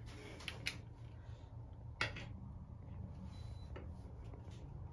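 Quiet room tone: a steady low hum with a few light clicks, the sharpest about two seconds in.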